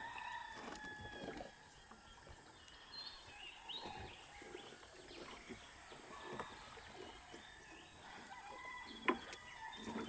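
Chickens clucking, with a rooster crowing at the start; a sharp knock about nine seconds in.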